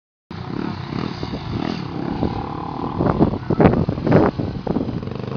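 Motorbike engine running steadily, with several short louder surges between about three and four and a half seconds in.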